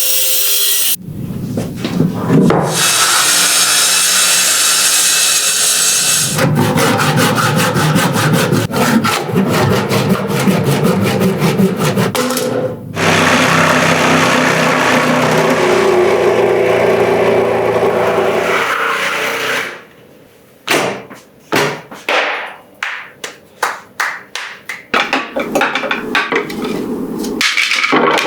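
A tool working wood: stretches of steady noise alternate with runs of quick, even strokes, and the last third is a series of separate short strokes.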